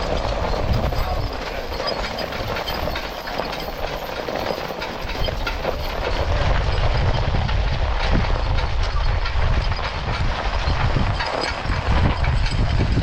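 Horse-drawn cart rattling and rumbling steadily as it rolls over rough ground, a dense clatter of loose parts and wheels.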